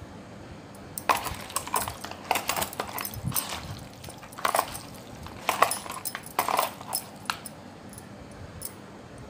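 A hand squishing and kneading raw chicken pieces coated in turmeric, salt and lemon juice in a bowl, in irregular wet squelches, with bangles on the wrist clinking. The mixing starts about a second in and stops about seven and a half seconds in.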